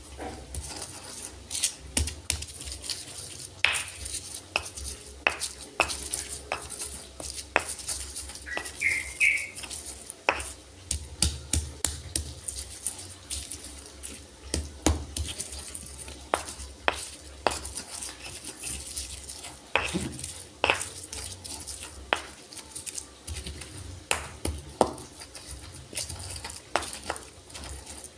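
Stone pestle (ulekan) crushing and grinding chilies and garlic in a stone mortar (cobek): irregular knocks of stone on stone, with scraping and grinding between them.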